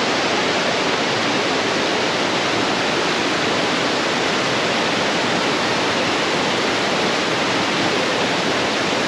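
Waterfall running, a steady even rush of falling water with no change in level.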